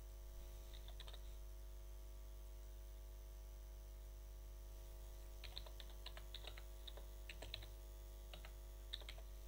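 Computer keyboard typing, faint: a few keystrokes about a second in, then a quicker run of keystrokes through the last four seconds.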